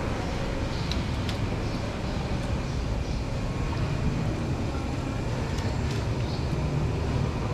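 Steady low roar of large gas burners under cooking pots.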